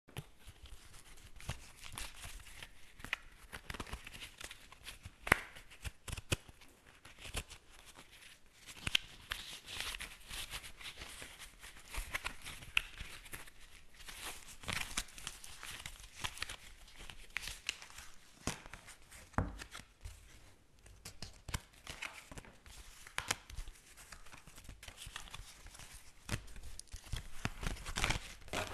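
A deck of playing cards being shuffled by hand: repeated papery rustles and snaps, with many sharp clicks scattered between them.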